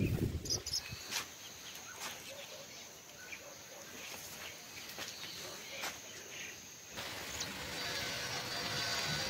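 Outdoor hillside ambience: an insect's steady high-pitched buzz with faint bird chirps and a few clicks. About seven seconds in, these give way to a soft, even hiss.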